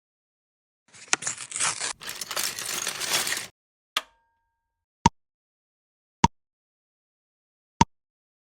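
Packaging being torn open: a crackling, tearing rustle lasting about two and a half seconds, followed by four single sharp clicks a second or so apart.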